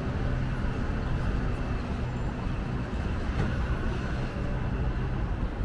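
City street traffic: a steady low rumble of passing and idling vehicles, with a steady low engine hum that fades near the end.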